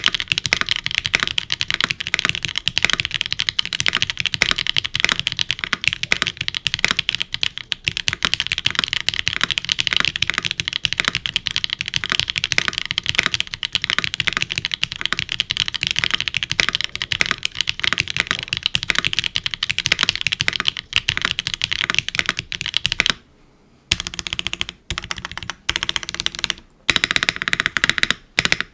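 Typing on a Neo75 CU mechanical keyboard with HMX Sonja HC switches, an aluminium plate, gasket mount, no foam and GMK keycaps: a fast, steady stream of keystrokes. Near the end it stops briefly, then goes on as slower, separate key presses.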